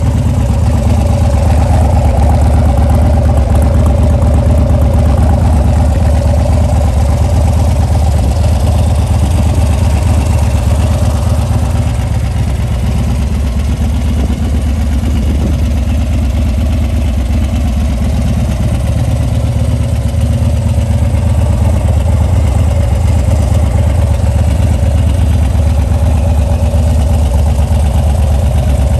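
2013 Harley-Davidson Dyna Street Bob (FXDB) with a stock 103-cubic-inch V-twin, idling steadily through an aftermarket Bassani exhaust. The sound is a little quieter for several seconds midway.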